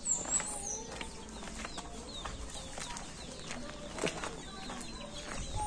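Birds chirping in the background: many short, quick chirps, with a few lower calls among them. A single sharp tap sounds about four seconds in.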